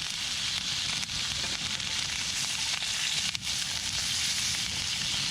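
Hamburger steak of A5 Sendai beef sizzling steadily in a hot pan, with one sharp click about three and a half seconds in.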